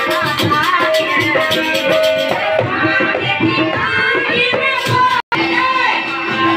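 Devotional folk music: singing over hand drums and rattles, with the beat carrying on steadily. About five seconds in, the sound drops out for an instant at an edit and the music picks up again.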